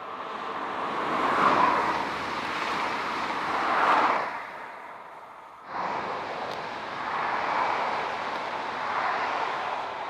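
Electric passenger multiple-unit train passing at speed, wheels and bogies on the rails making a rushing noise that swells twice and fades. About six seconds in, a second electric multiple unit's passing noise starts abruptly and swells as it goes by.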